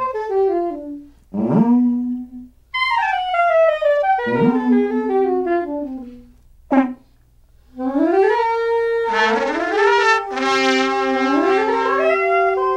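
Free-improvised wind trio of trumpet, clarinet and brass horn playing falling, sliding phrases broken by short pauses. In the second half several notes overlap in long held and bending lines.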